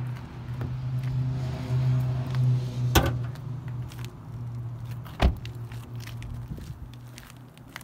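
Honda Civic Type R being opened up for its hood: a sharp click about three seconds in as the hood release is pulled and the latch pops, then a heavy thump of the car door shutting, over a steady low hum.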